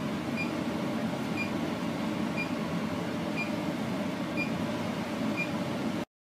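Steady fan hum of a biosafety cabinet's blower running, with a short high beep repeating about once a second.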